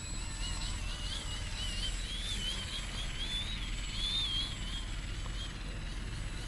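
Small battery-electric RC aerobatic plane, a 70 cm Yak-55M foamie, flying 3D: its motor and propeller give a thin high whine that rises and falls over and over as the throttle is worked, over a steady low rumble.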